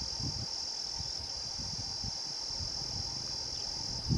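Steady, high-pitched chorus of insects, with a faint uneven low rumble underneath.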